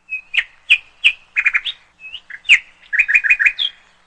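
A bird chirping: two phrases of quick, sharp chirps, each ending on a higher note.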